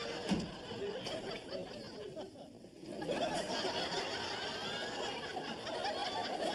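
Studio audience laughing at a punchline. The laughter dies down about two seconds in, then swells again about a second later.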